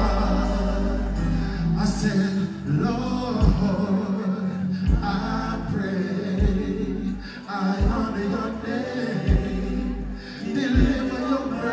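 Live dancehall music through a concert sound system: a male vocalist singing over a heavy bass beat.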